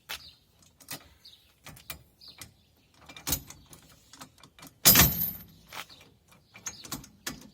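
Metal towing gear being handled: a series of clicks and knocks, with a heavy clank about five seconds in that rings briefly and a smaller one about two seconds before it. Birds chirp faintly in the background.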